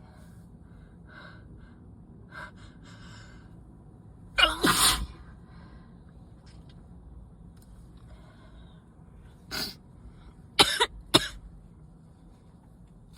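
A person's sneezing fit from a cold or allergies: a few faint sniffs, then one loud sneeze about four seconds in. Near the end come a smaller burst and two sharp sneezes in quick succession.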